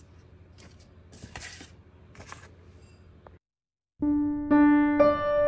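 Faint rustling of a paper card handled in the hands, then after a brief silence, background piano music starts with single notes about half a second apart.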